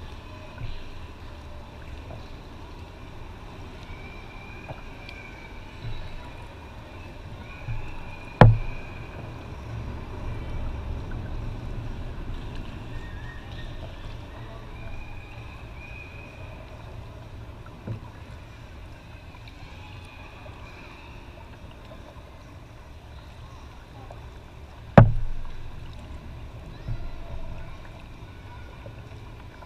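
Kayak on the water with a steady low rumble from the kayak-mounted camera. There are a few light knocks, and two sharp, loud knocks on the hull about 8 seconds in and again about 25 seconds in.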